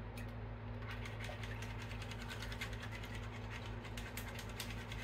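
A whisk scraping and clicking against the inside of a cooking pot as raw eggs are beaten to break up the yolks. It starts about a second in and quickens toward the end, over a steady low hum.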